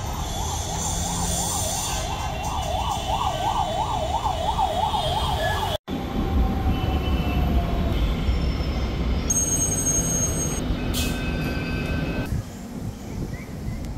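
An emergency-vehicle siren sounds in a fast warble, about three or four swings a second, over traffic noise, and cuts off abruptly. Then comes the low rumble of a metro train arriving at a platform with screen doors, with short high electronic tones as the doors open near the end.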